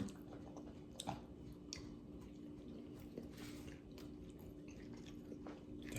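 A person chewing fries with the mouth close to the microphone: faint, scattered wet mouth clicks and soft chewing.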